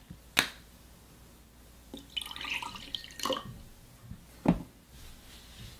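A sharp click, then about a second of liquid splashing into a drinking glass, then a knock as the glass of orange juice is set down on a table.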